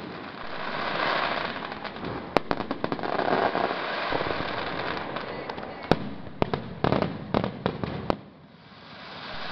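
Fireworks going off: sharp bangs and pops over a continuous crackling hiss from bursting shells and fountains, with a dense cluster of reports about six to eight seconds in.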